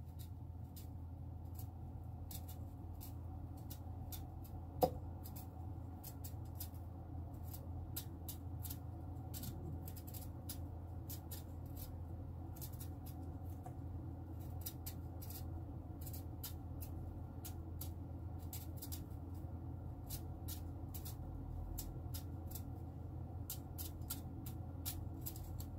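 Kitchen knife bevelling the edge of a raw daikon radish round: a quick run of small crisp cutting clicks as the blade shaves off a thin strip. One louder tap comes about five seconds in, and a steady low hum runs underneath.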